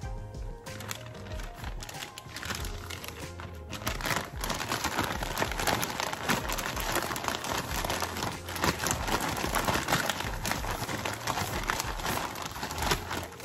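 Plastic zip-top bag crinkling as a catfish fillet is shaken in breading mix inside it, getting louder and busier about four seconds in. Background music with a steady beat plays throughout.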